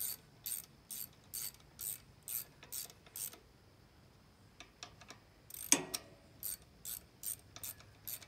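Ratchet wrench clicking through quick strokes, about two a second, as bolts are run back in. There is a short pause before the middle and one louder metal knock just after it.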